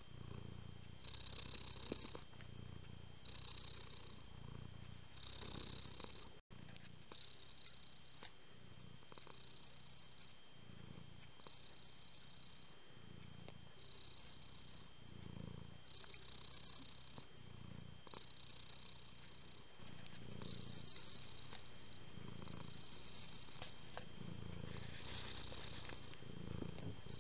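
Domestic cat purring steadily, the purr swelling and fading with each breath about once every second or so.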